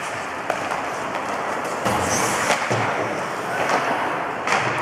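Ice hockey play in an indoor rink: a steady scraping noise of skates on the ice, broken by several sharp knocks of sticks and puck.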